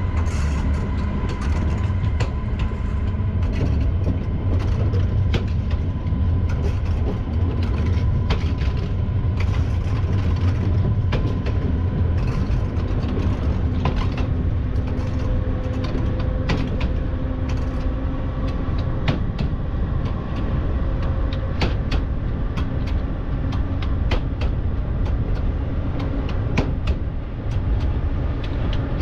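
Siemens Vectron electric locomotive heard from inside its cab while running, with a steady low rumble from the wheels on the rails, steady whining tones from the drive, and scattered clicks and knocks.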